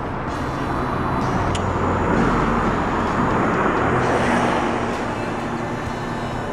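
A road vehicle passing by: a rushing noise that swells about two seconds in and fades again near the end.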